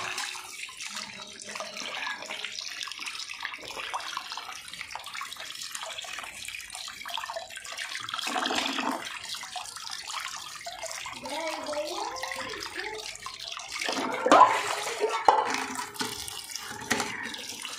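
Tap water running and splashing into an aluminium pot of water while sweet potatoes are rubbed clean by hand. A brief louder sound stands out about fourteen seconds in.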